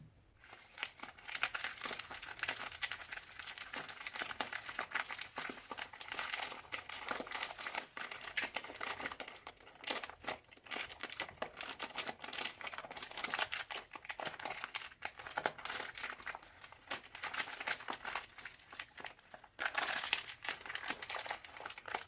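Crunchy slime full of beads being squeezed and worked by hand: a dense, irregular crinkling crackle, with short breaks now and then.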